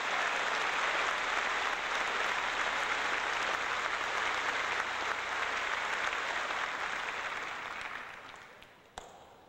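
Large audience applauding, dying away over the last two seconds, followed by a single sharp crack near the end.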